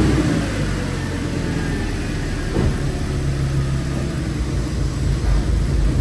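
Audi S6 engine running just after starting, the start-up flare settling to a steady idle in about the first second.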